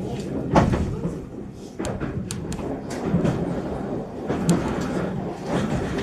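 Meitetsu Seto Line electric train running, heard from inside: a steady low rumble from the running gear, with irregular sharp clicks and knocks from the wheels on the track.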